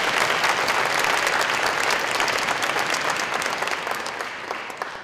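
Audience of schoolchildren and adults applauding, the clapping thinning out and fading near the end.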